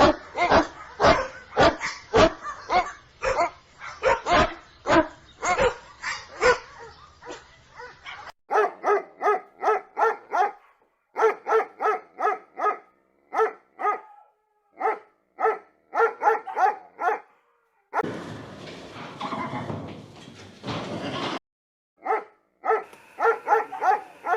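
Dog barking in quick runs of short, high-pitched barks, with a change of recording about a third of the way in. About three quarters in, a few seconds of rougher, noisier sound without barks interrupt before the barking resumes.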